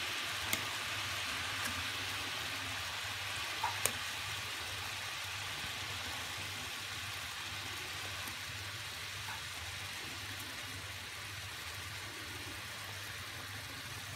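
Sugar-and-water syrup boiling in a nonstick pan with orange slices simmering in it: a steady, faint bubbling hiss, with a couple of small clicks in the first few seconds. This is the candying stage, where the slices cook in the syrup.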